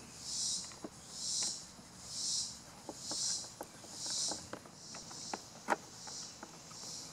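Small scattered clicks and ticks of screws being hand-driven into the plastic brush cover of an upright vacuum cleaner. Under them an insect chirps in steady hissing pulses about once a second.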